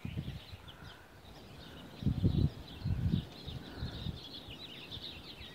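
Small birds chirping continuously in the background, with a few short low rumbles or bumps about two, three and four seconds in.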